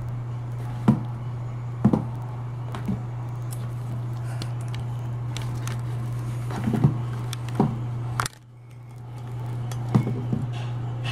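A chinchilla moving about in a plastic hideout makes a handful of sharp knocks and taps, irregularly spaced, over a steady low hum. The hum cuts out suddenly about eight seconds in and swells back.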